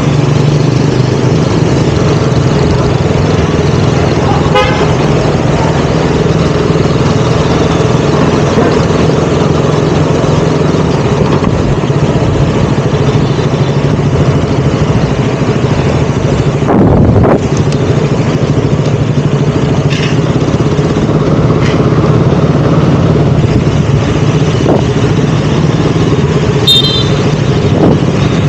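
KTM Duke 200's single-cylinder engine running steadily while riding in traffic, with a vehicle horn honking briefly about four and a half seconds in and again near the end. A short loud rush of noise comes about seventeen seconds in.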